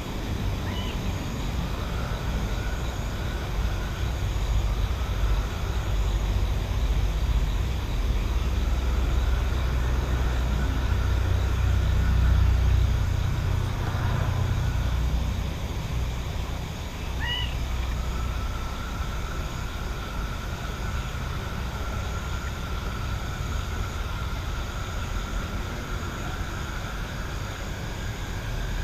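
Night-time countryside ambience: a low rumble that swells to its loudest about halfway through and then eases, over a steady high, thin background. A couple of faint short chirps stand out, one near the start and one a little past the middle.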